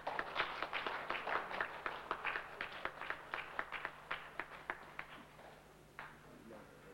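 A small audience clapping after a song, scattered separate hand claps rather than a dense roar, thinning out about five seconds in with one last clap about a second later. A low steady hum runs underneath.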